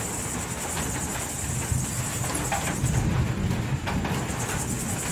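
Night-time crickets trilling steadily and high over an even hiss of rain, with a low rumble that swells about three seconds in.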